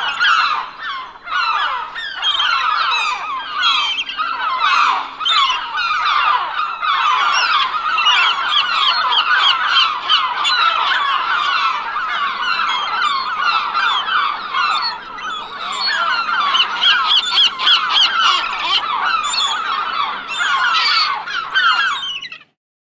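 A flock of seagulls calling, many short squawking calls overlapping without a break; the sound stops abruptly near the end.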